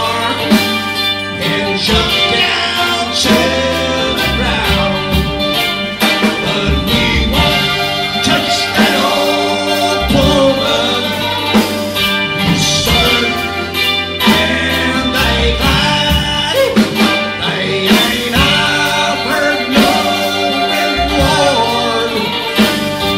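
A live band of guitar, bass guitar and drums playing a song, with steady drum hits under sustained guitar notes.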